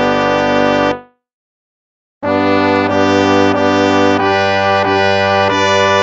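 Instrumental hymn music in a brass sound, slow held chords. The chord fades out about a second in, there is a short silence, and the brass comes back in with new sustained chords a little after two seconds.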